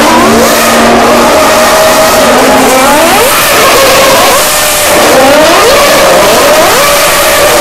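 Formula One cars' 2.4-litre V8 engines at very high revs as several cars accelerate past in succession. The engine pitch climbs and drops sharply at each upshift, many times over, with the notes of different cars overlapping.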